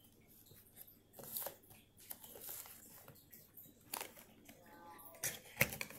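Cardboard box holding a metal tin of putty being handled and turned over on a table: scattered rustles and scrapes with a few sharp taps, the loudest near the end.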